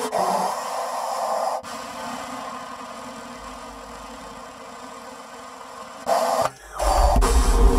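Experimental electroacoustic free improvisation made of noise textures rather than notes. A band of hiss cuts off abruptly about a second and a half in, a thinner hiss with a hollowed-out middle follows, and near the end a sudden loud burst of noise gives way, after a brief dropout, to a deep rumble.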